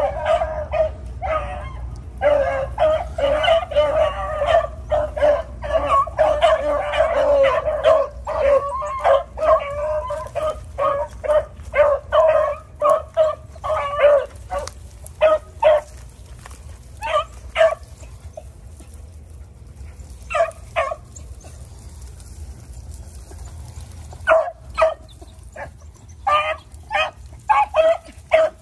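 A pack of beagles baying as they run a rabbit's scent trail. Several voices overlap at first, then thin to scattered single bays with short pauses, and pick up again near the end.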